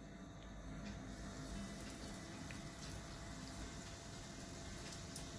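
A coated chicken strip frying in hot oil: a faint, steady sizzle that starts about a second in as the strip goes into the pan.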